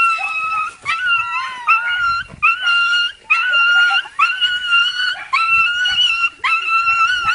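Dog whining and crying in a run of high-pitched cries, a little more than one a second. Each cry slides quickly up and then holds steady: excited greeting whines from a dog reunited with its owner.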